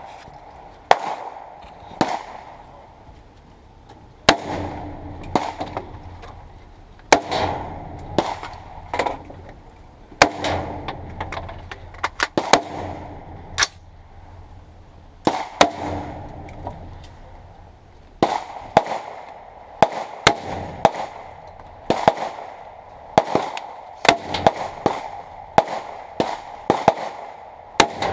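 Gunshots at a shooting range: many sharp shots at irregular intervals, some in quick strings of two to four, others seconds apart.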